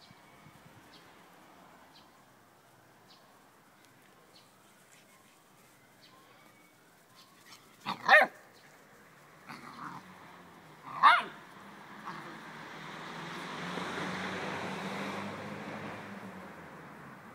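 A dog gives two short, high-pitched barks about three seconds apart, close by. After them a broad noise swells and fades over several seconds.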